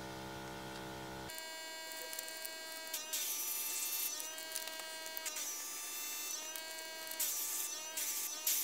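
Airbrush spraying paint through a stencil in short hissing bursts, several over a few seconds, over a steady hum.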